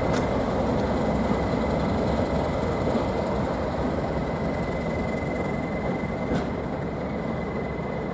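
Class 37 diesel locomotives with English Electric V12 engines running as they haul a test train away, a steady rumble with a faint high whistle, slowly fading as the train leaves.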